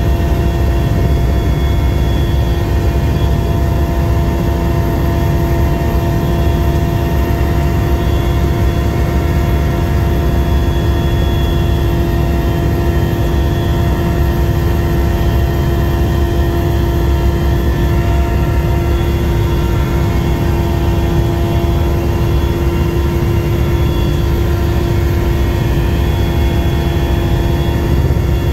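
Helicopter engine and rotor noise heard from aboard the aircraft: a loud, steady drone with steady whining tones over it.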